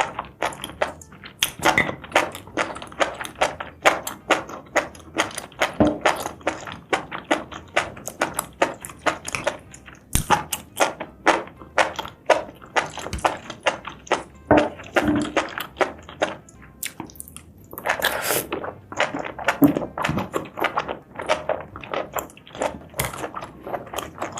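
Close-miked eating: a person chewing and biting spicy seafood and mushrooms, with many irregular mouth clicks several times a second and a few longer smacking or slurping stretches about two-thirds of the way in.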